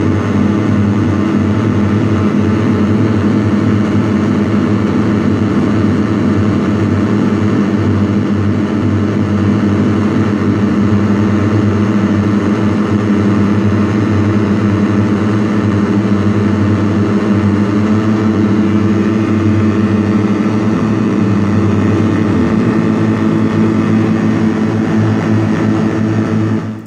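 Handmade square-wave oscillator drone synthesizer (METSÄÄN Dirty Drone Defrost) with its high frequencies cut, giving a thick, steady drone of stacked low tones. The lower pitches shift about ten seconds in and again near the end. The drone stops abruptly at the very end.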